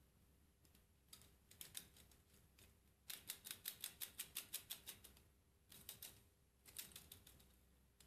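Plastic escapement of a 3D-printed clockwork heart ticking in short runs: a few ticks, then a fast even run of about seven ticks a second in the middle, then two more brief runs, stopping each time, as the mechanism will not yet keep going.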